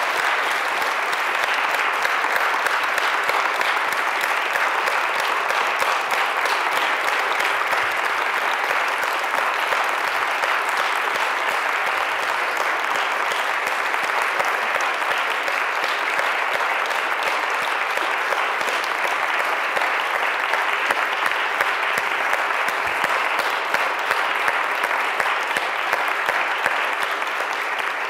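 Audience applauding, a long, steady round of clapping.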